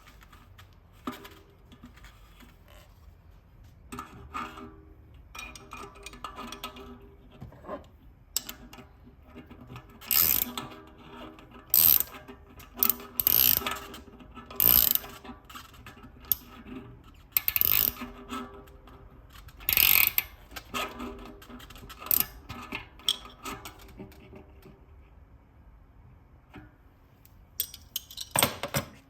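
Clicking and clinking of metal tools and parts being worked on a Zipp 303 Firecrest rear wheel hub during disassembly for bearing replacement. There are irregular sharp knocks, louder in the middle stretch.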